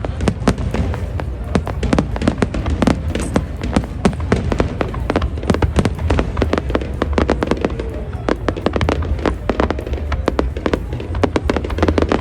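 Fireworks display: a rapid, irregular run of sharp bangs and crackles, several a second, over a continuous low rumble of distant bursts.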